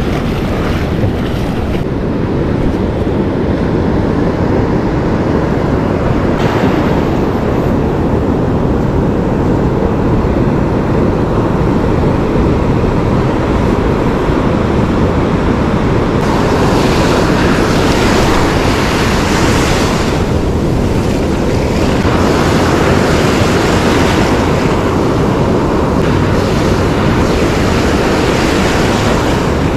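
Surf washing up and back over the sand in a steady loud rush, with wind buffeting the microphone. Several hissier surges of wash come and go in the second half.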